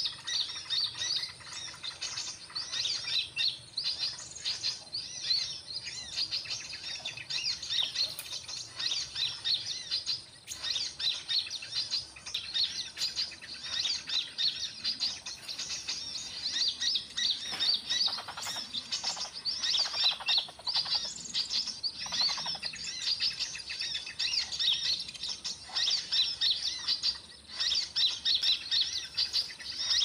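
Dense, continuous high-pitched chirping of many small birds, one call overlapping the next, with a short lull about ten seconds in.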